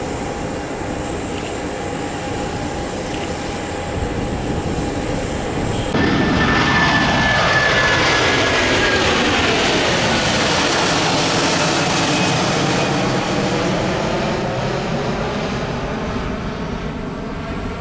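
Twin Otter Series 400 seaplane's twin turboprop engines running at high power. About six seconds in the sound jumps abruptly louder, then the engine pitch falls as the plane passes by.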